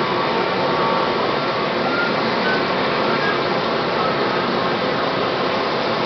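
Sikorsky HH-60J Jayhawk's twin turboshaft engines running on the ground at idle: a steady turbine rush with a faint whine, unchanging throughout.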